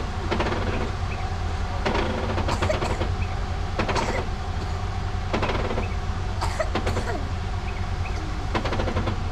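A vehicle engine running at a steady low pitch, with short knocks and clunks every second or so.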